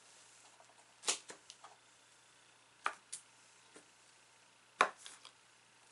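A few sharp, separate clicks and taps as slime and its small plastic containers are handled, the loudest near the end, with fainter ticks between.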